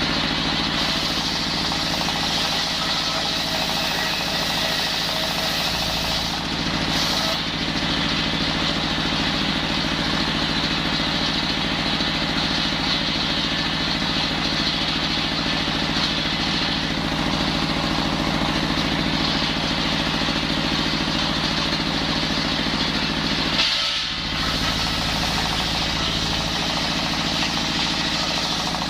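Engine-driven circular saw bench running steadily at a constant speed while timber is cut into rafters. The sound dips briefly about a quarter of the way in and again about three-quarters of the way through.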